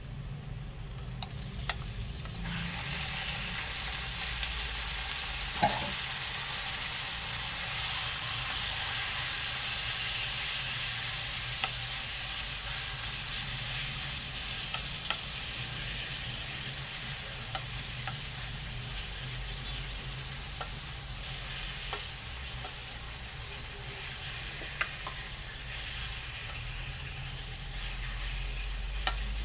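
Cubed pork going into hot oil with sautéed onion and garlic in a wok: a loud sizzle starts about two seconds in, then eases a little as the meat is stirred. Light taps and scrapes of a wooden spoon against the pan are scattered through it.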